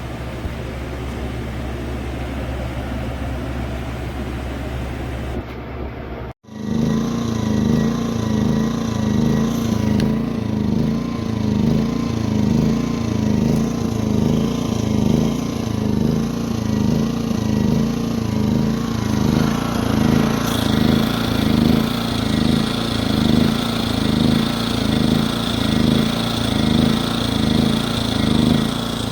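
Pulsar G2319N inverter generator running. It starts as a steady low hum; after a sudden break about six seconds in, it runs louder and higher-pitched, swelling and falling about once a second.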